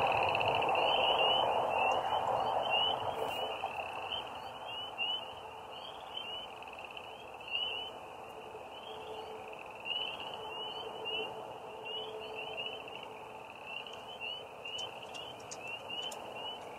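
Night chorus of frogs and crickets: many short, high chirps overlapping in a steady run. Under it, a low rumble fades away over the first few seconds.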